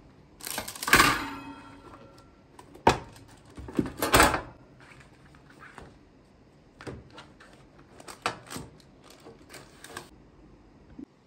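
Metal wire cooling rack clattering down onto a metal baking tray, ringing briefly, followed by a string of clanks and knocks as baking trays are stacked, gripped and flipped over.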